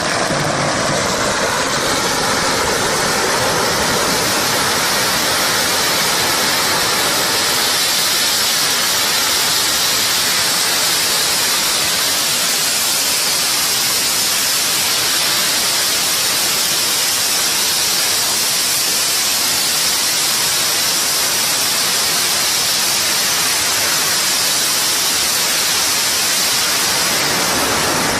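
A long string of Chinese firecrackers going off without a break, the bangs so rapid and dense that they merge into one steady crackling hiss.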